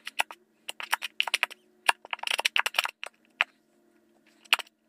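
Plastic squeeze bottle of Elmer's glue being squeezed empty into a plastic bowl: irregular clusters of sharp clicks and crackles as the bottle flexes and the thick glue sputters out of the nozzle, pausing briefly near the end.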